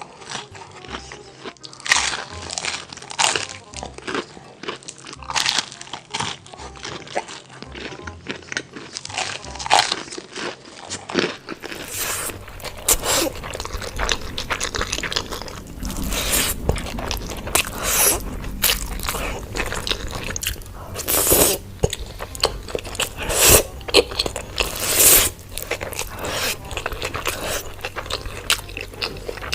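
A person biting and chewing crunchy food close to the microphone, one irregular crunch after another. About twelve seconds in the sound switches to another recording, where the crunches are sharper and louder.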